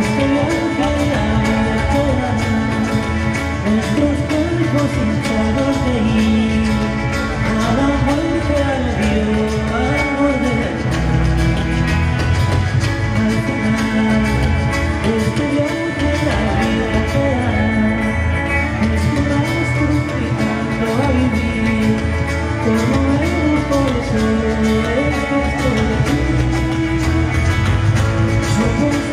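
Live rock band playing a slow song's instrumental introduction, guitars carrying a wandering melody over bass and a steady band backing.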